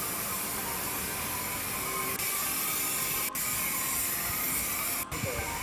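Car-wash spray wand hissing steadily as it sprays tyre and engine cleaner onto a motorcycle's wheels, cutting out briefly twice, about three and five seconds in.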